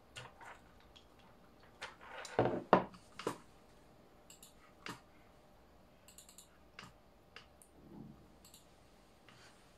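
Knocks and clatter of a hard drive being handled and hooked up on a workbench, loudest about two to three seconds in, followed by short clusters of light clicks recurring every second or two.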